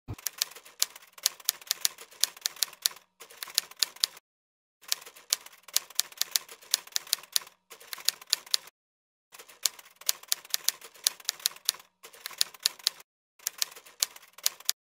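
Typewriter key clacks used as a sound effect for text being typed out on screen. The clacks come rapidly in runs of one to three seconds, broken by several short pauses.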